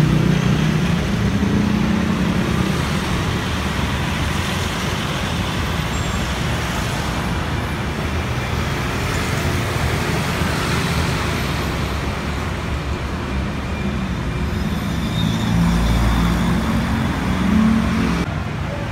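Steady motor traffic on a busy city road, with engines running and tyres on the road surface. A deeper engine rumble swells near the end.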